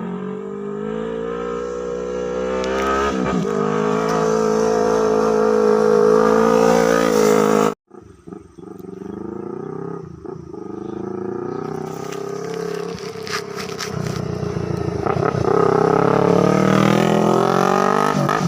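Yamaha R3's parallel-twin engine under load as the bike climbs uphill past the microphone, growing louder as it comes by. It cuts off abruptly about eight seconds in, then a second pass builds again, with a few dips in pitch and its loudest part near the end.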